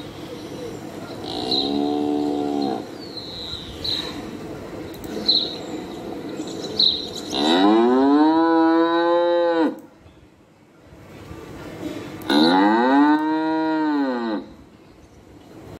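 Cattle mooing: a short call about two seconds in, then two long, loud moos about seven and twelve seconds in, each rising and then falling in pitch.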